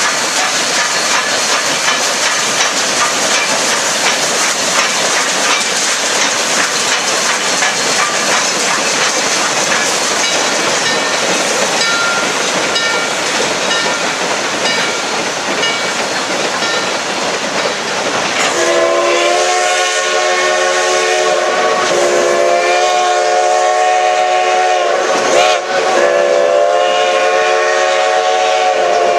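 Durango & Silverton narrow-gauge steam train rolling across a steel truss bridge over a rushing river, with a rushing, clattering noise. About two-thirds of the way in, the locomotive's chime steam whistle starts blowing long, several-note blasts.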